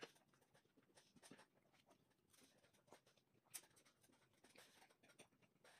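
Near silence with faint, scattered clicks and small scrapes of a knife and fork on a plate during eating, with one sharper click about three and a half seconds in.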